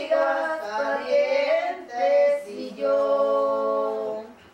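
Female voices singing unaccompanied, a phrase of several notes ending on one long held note that stops about four seconds in.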